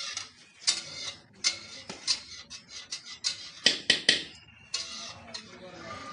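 Metal ladles and serving spoons clinking and scraping against large metal cooking pots as food is dished out. The clinks come at irregular moments, with a quick run of three loud ones near the middle.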